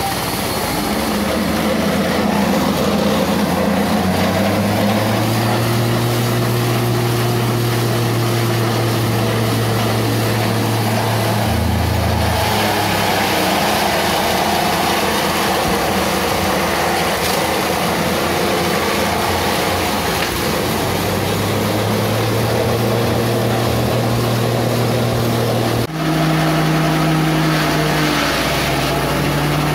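Small stationary engine driving a forage chopper, running steadily at speed while green leafy stalks are fed in and shredded. Its pitch drops briefly about twelve seconds in. About twenty-six seconds in there is an abrupt cut to a second engine-driven chopper running at a slightly different pitch.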